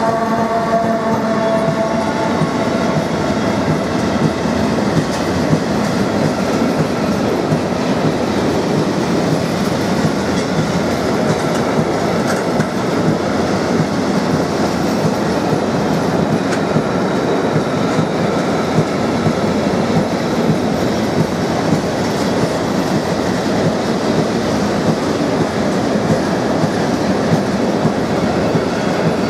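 Freight train of container and swap-body wagons, hauled by an electric locomotive, passing close by at speed: a steady, loud rolling noise of wheels on rails. A humming tone of several notes fades out in the first few seconds as the locomotive goes by.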